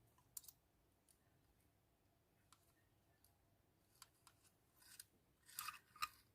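Faint clicks and light rustling from small parts and wires being handled on a model locomotive: a few scattered ticks, then a short run of clicks near the end.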